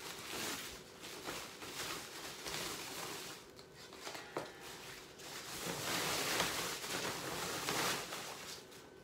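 Packing wrap rustling and crinkling as an electric guitar is unwrapped from its box. The sound grows louder from about six to eight seconds in.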